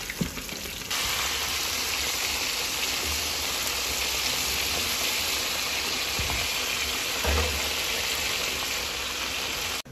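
Pieces of fish deep-frying in a pan of hot oil: a steady, dense sizzle that comes up about a second in and cuts off abruptly just before the end.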